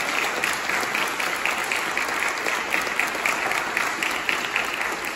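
Congregation applauding: many hands clapping at once.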